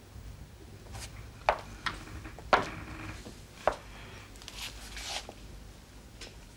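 A few sharp, separate taps and knocks, the loudest about one and a half and two and a half seconds in, with soft rustling between them over a low room hum.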